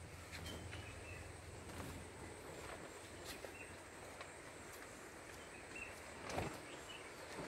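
Faint outdoor background noise with short high chirps every second or two, a few light clicks, and a single louder knock about six seconds in.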